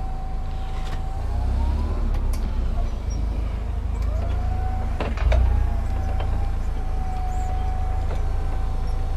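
Forklift running: a steady high whine that bends up in pitch and back down twice, over a low engine rumble. A single clunk comes about five seconds in.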